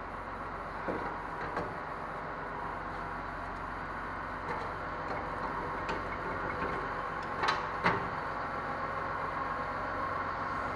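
Front brake caliper and pads of a 2010 Ford F-150 being handled as the pads are pulled out of the caliper: a few short clicks, two sharper ones close together about three-quarters of the way through, over a steady shop hum.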